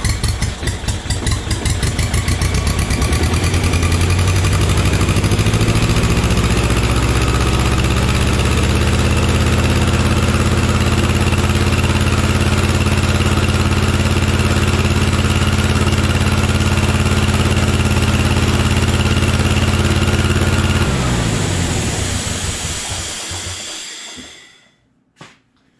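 Schramm Pneumapower 35-H gas-engine air compressor starting: it fires unevenly, catches and comes up to a steady speed within the first few seconds. It then runs steadily until it is shut off about 21 seconds in, the pitch falling as it coasts to a stop a few seconds later. A couple of light clicks follow near the end.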